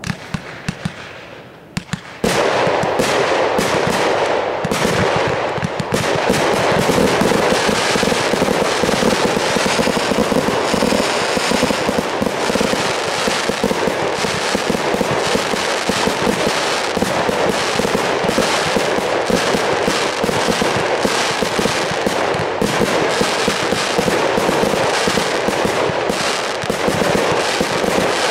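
Aerial fireworks firing in quick succession. A few separate sharp reports come in the first two seconds, then from about two seconds in an unbroken barrage of bangs and crackling.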